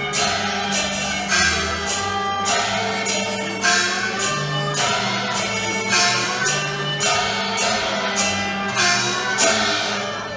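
Cantonese opera ensemble music: melodic instruments over a steady low drone, punctuated by sharp percussion strokes about once a second.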